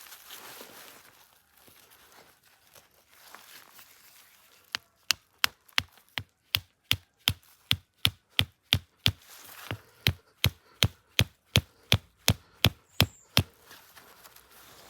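Steady chopping, about three sharp strokes a second, starting about five seconds in and stopping about a second and a half before the end.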